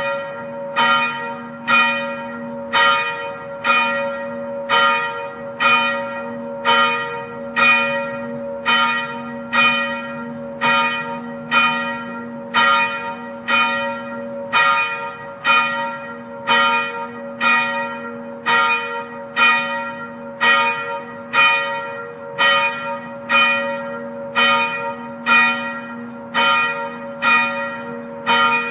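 Church bell ringing in steady, evenly spaced strokes about once a second, the hum of each stroke ringing on under the next.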